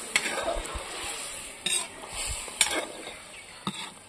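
Metal ladle stirring a simmering curry in a steel wok, with a few scrapes and knocks of the ladle against the pan over a steady sizzle.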